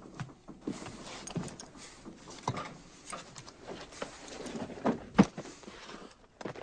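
Scattered knocks, clatter and rustling as men move about and handle gear on a tank's turret, with the loudest knock about five seconds in.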